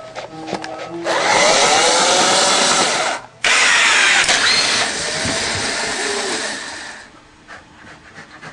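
A loud motor-driven whirring like a power tool, starting about a second in, cutting out briefly a little after three seconds, then running on more quietly and stopping near the end, over background music.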